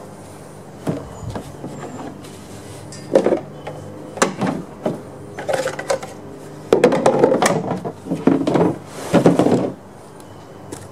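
Hard plastic chainsaw carrying case being opened and handled, with irregular clattering and knocking of the plastic shell and the saw inside. The clatter is densest and loudest over the last few seconds as a chainsaw is lifted out.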